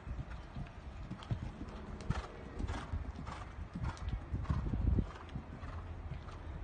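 Hoofbeats of a horse cantering on sand arena footing, a repeating rhythm of dull thuds.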